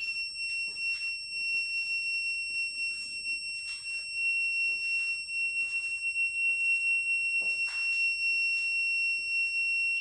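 A 5-volt piezo buzzer driven by an Arduino sounds one unbroken high-pitched tone. It signals that the RCWL-0516 microwave radar sensor is detecting movement.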